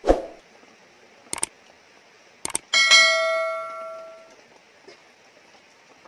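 A thump at the start, then two short clicks and a bright bell ding that rings out and fades over about a second and a half: the YouTube subscribe-button and notification-bell sound effect.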